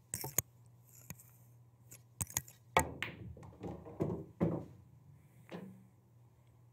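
Pool shot on a Diamond pool table: the cue tip strikes a ball, then a series of sharp clacks as balls hit each other and the cushions. About three seconds in comes a run of knocks and rumbling as a ball drops into a pocket and rolls away.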